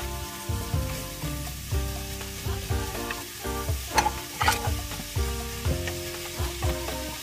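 Sliced onions and carrots sautéing in oil in an aluminium pot, sizzling while a spatula stirs them, with a couple of sharp scraping clacks against the pot about four seconds in. Light background music runs underneath.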